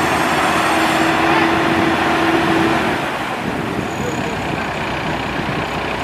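Maxxi Bimo 102L rice combine harvester running: a dense, steady mix of engine and threshing machinery. A steady whine runs through the first half and stops about three seconds in, after which the machine is slightly quieter.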